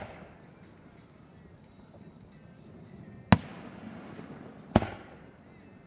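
Aerial fireworks shells bursting: two sharp bangs about a second and a half apart in the second half, each followed by a rolling echo, with the fading tail of an earlier bang at the very start.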